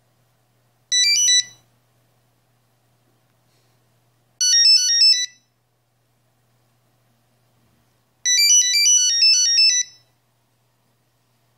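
Nokia 6210 monophonic ringtone playing: three short phrases of rapid electronic beeping notes about three seconds apart, the last phrase the longest.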